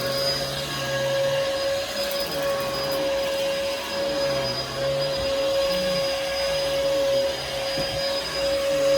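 Bissell Helix upright vacuum cleaner running steadily, its motor giving a constant whine over a rushing airflow noise.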